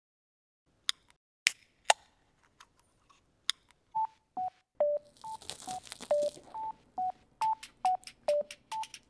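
A few sharp clicks, then from about four seconds in a simple intro tune of short beep-like notes, about two a second, hopping between a few pitches. A brief hiss sounds in the middle of the tune.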